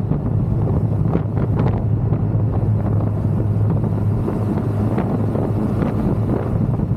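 Wind buffeting the microphone over the steady low drone of a Kawasaki Versys 1000 motorcycle's engine cruising at motorway speed.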